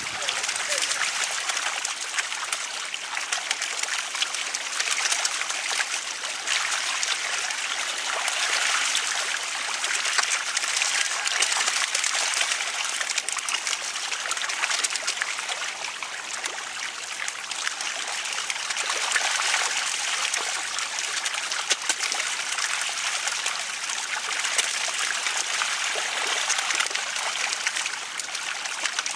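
Shallow muddy water rushing and splashing steadily, broken by many small quick splashes as crowded fish, snakeheads among them, thrash in it.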